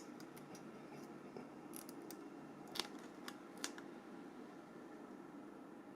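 A few small, sharp clicks and taps of Nokia E65 phone parts being handled during reassembly, the loudest two just before the middle, over faint steady hiss.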